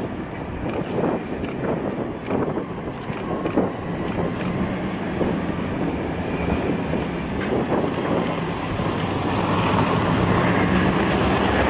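Diesel locomotive pushing a wedge snowplow through deep snow: a steady engine rumble under a rush of snow, with short crackles and a thin high whine that slowly wavers up and down. It grows louder toward the end.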